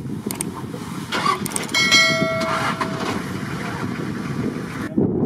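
Subscribe-button sound effect: a few sharp clicks, then a bell-like chime that rings for about a second, over a steady low rumble. The upper sound drops out near the end.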